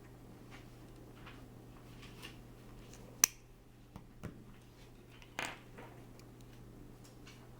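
Handling noise from the small clip-on lens kit being unboxed: one sharp click about three seconds in, two lighter clicks a moment later, then a short rustle, over a low steady hum.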